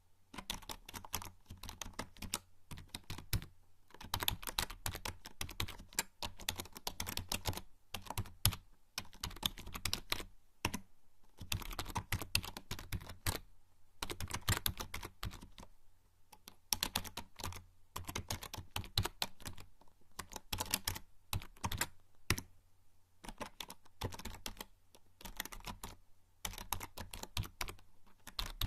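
Typing on a membrane computer keyboard: rapid runs of soft key clicks in bursts, with short pauses between them.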